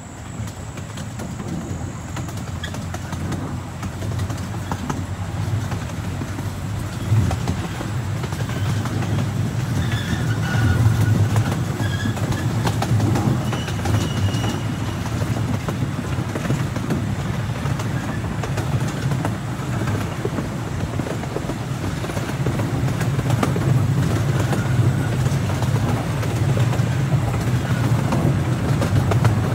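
Open passenger cars of a small amusement-park train rolling along the track: a steady low rumble and rattle of the wheels, growing a little louder as it goes.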